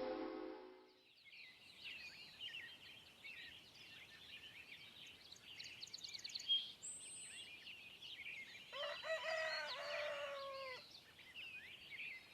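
Faint birdsong of many small birds chirping, with a rooster crowing once about nine seconds in, its call in several parts dropping at the end.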